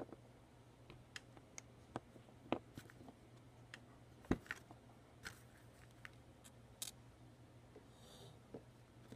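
Lego pieces being handled and pressed together: scattered small plastic clicks and taps, the loudest about four seconds in, over a faint steady hum.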